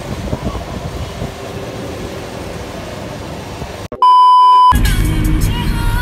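Steady rumbling noise of a petrol pump as fuel is dispensed, cut off about four seconds in by a loud, steady electronic beep lasting under a second, followed by background music over car road noise.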